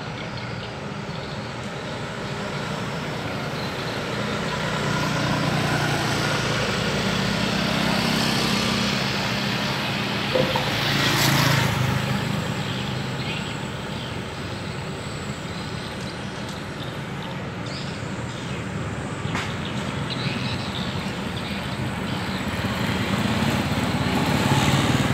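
Street traffic passing close by, with a steady low engine hum underneath. A motorcycle goes past about halfway through, and a car passes near the end.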